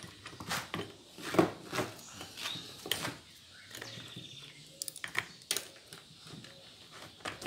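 Steel motorcycle roller chain clinking and rattling as it is handled, pulled around wooden pieces and hooked onto a steel clamp bar, heard as a string of separate sharp clicks and knocks.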